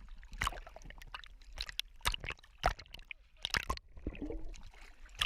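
Water sloshing and gurgling, with irregular small splashes and knocks.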